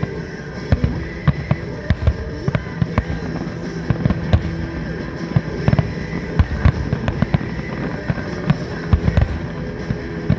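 Fireworks finale: a rapid, irregular barrage of shell bursts, booms and cracks one after another, with music playing underneath.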